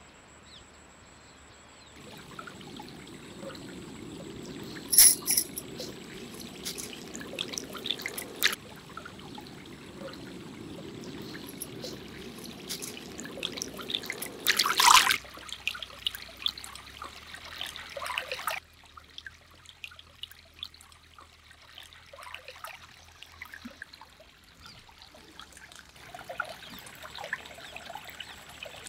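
Water trickling and running in a shallow stream, with a few short, louder sharp sounds, the loudest about five and fifteen seconds in. The water grows quieter about two-thirds of the way through.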